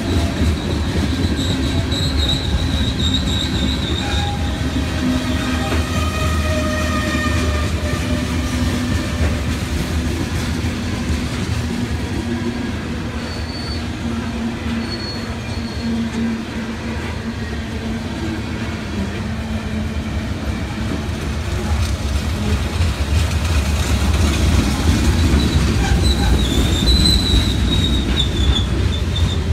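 Freight cars of a long mixed-freight (manifest) train rolling past at trackside, a steady low rumble of wheels on rail. High wavering wheel squeal comes in early on and again more loudly near the end.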